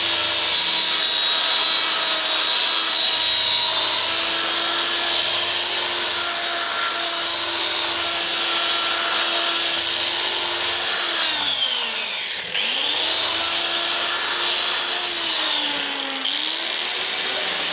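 Handheld electric sander with a round pad running steadily while sanding a wooden plank smooth, a high motor whine. About twelve seconds in its pitch falls sharply and climbs back, and it sags again briefly near the end.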